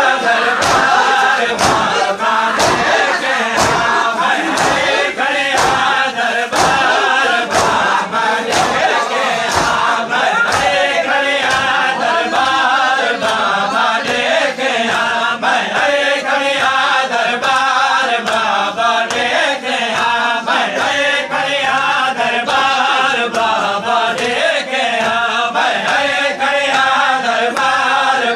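Noha lament chanted by male reciters with a crowd of men singing along, over steady slaps of matam chest-beating, about two strokes a second.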